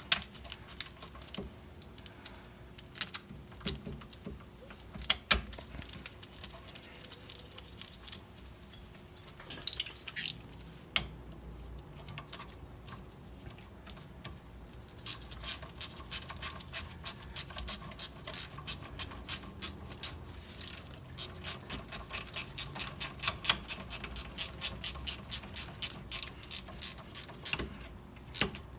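Ratchet wrench clicking at a quick, even pace as the two 14mm caliper bolts are run in on a rear brake caliper, after a first half of scattered metal clicks and knocks.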